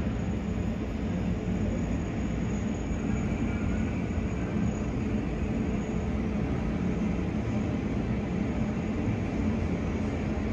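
Steady low engine noise from a Lufthansa Airbus A380's four Rolls-Royce Trent 900 turbofans at taxi power as the jet taxis forward.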